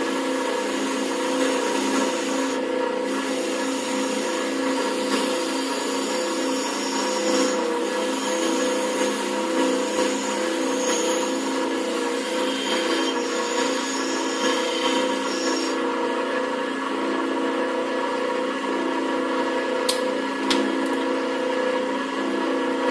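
An electric power tool motor running steadily while metal bolts are held against it to clean them up, with a scratchy rubbing noise that comes and goes over the motor's hum.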